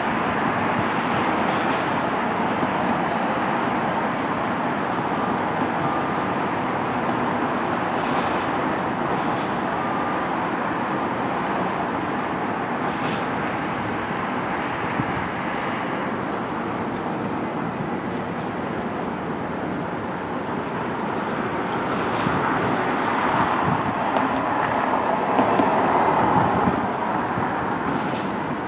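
Steady rumble of vehicles running outdoors, swelling louder for a few seconds near the end.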